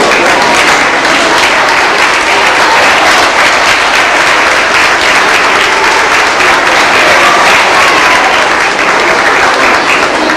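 An audience applauding, a dense steady clapping that goes on through the whole stretch.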